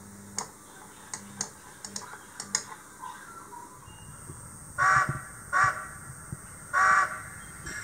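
Model steam locomotive's sound-decoder whistle giving three short toots about five seconds in, the last a little longer, after a few light clicks.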